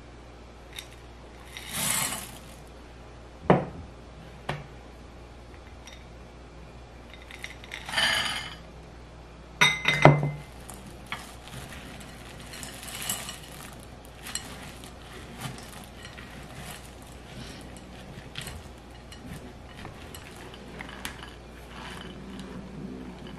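Chocolate and peanut butter chips poured into glass mixing bowls with a brief rattle twice, sharp knocks of a spatula on glass, the loudest about ten seconds in, then a spatula scraping and folding the chips into thick cookie dough against the glass bowl.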